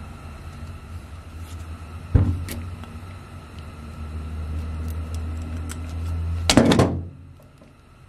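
Crimping pliers closing an insulated butt connector onto a wire: a sharp click about two seconds in, then the louder squeeze of the crimp near the end, over a steady low hum that stops right after it.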